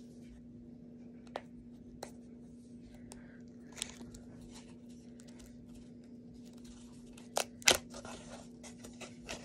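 Plastic packaging and a folding hand fan being handled: scattered small clicks and rustling, with two sharp snaps about three quarters of the way in, the second the loudest. A steady low hum runs underneath.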